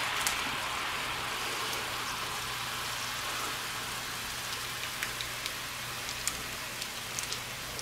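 Sauce-laced water boiling and sizzling in a hot wok: a steady hiss with scattered small pops that fades slightly.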